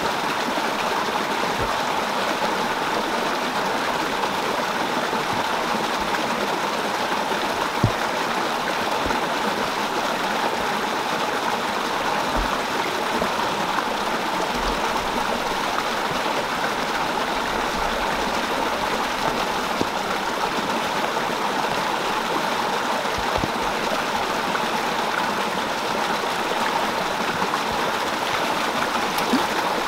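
Shallow rocky stream rushing steadily over stones, a constant hiss of flowing water, with one brief knock about a quarter of the way in.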